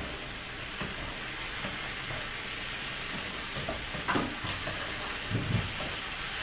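Vegetables and beronok stir-frying in a pan: a steady sizzle, with the pan stirred now and then and a couple of brief louder stirring sounds past the middle.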